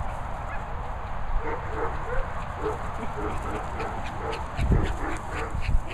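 A dog yapping in quick, short, repeated barks during play, with a couple of low thumps near the end.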